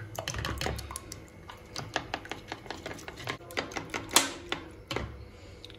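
Fork or spoon clicking against a bowl while beating eggs with chopped onion and chili: quick, irregular taps, with one louder knock about four seconds in.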